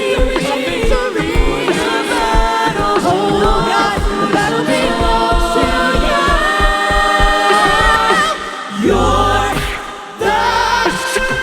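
Gospel choir singing in close harmony over a steady drum beat. About nine seconds in, the voices drop out to a held low note, then come back in a second later.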